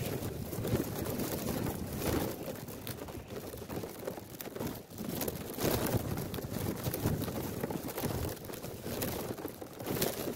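Wind noise and crinkly rustling on the microphone of a mobile phone tied to a flying kite, buffeting unevenly.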